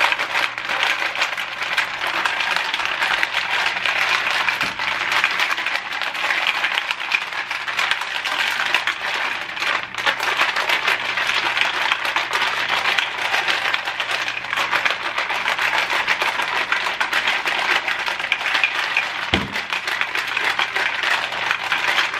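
Ice cubes rattling hard inside a bottle of creamer drink that is being shaken continuously, a fast dense clatter. There is one dull knock near the end.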